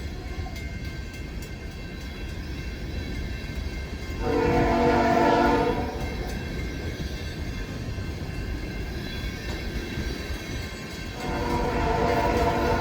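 Steady low rumble of empty coal cars rolling past, with a locomotive horn sounding twice: a blast of about a second and a half some four seconds in, and a longer one starting near the end.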